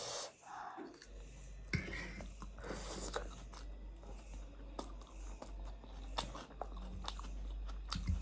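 Close-miked chewing and biting of food, a string of short wet clicks and crunches; a low steady hum comes in about a second in.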